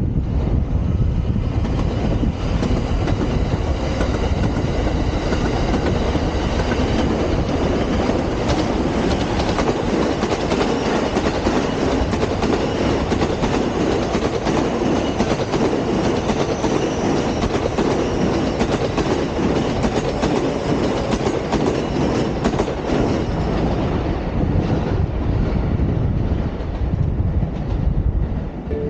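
A train running on the rails with steady wheel clatter and a faint high whine over the rumble.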